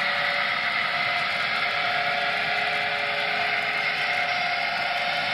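N scale model hopper train rolling along the track: a steady whir and rolling noise of small wheels on rail, with a few unchanging hums in it.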